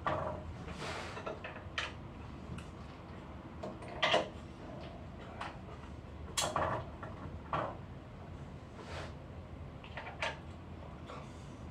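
Irregular clicks, knocks and scrapes of hands and a tool working parts inside an opened Lavazza Espresso Point EP 2100 capsule coffee machine, a dozen or so. The loudest come about a third of the way in and just past halfway.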